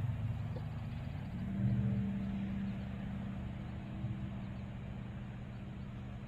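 Low, steady engine rumble of a motor vehicle going by, swelling about a second and a half in and then slowly fading.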